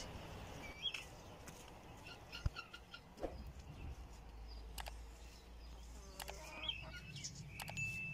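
Faint short bird chirps: a few about a second in, then more near the end, where one call is held briefly. Scattered faint clicks in between.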